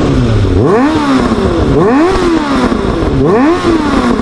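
Freshly restored Suzuki GSX600F's inline-four engine revved through its exhaust at a standstill, blipped about three times, each rev rising quickly and falling back toward idle.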